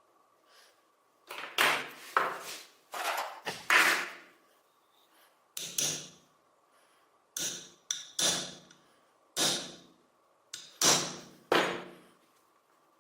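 A series of about a dozen sharp knocks and clunks on hard objects, irregularly spaced, each dying away within about half a second.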